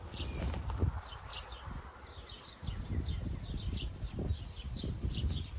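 Small birds chirping, a quick run of short high notes repeating over and over, over a low uneven rumble.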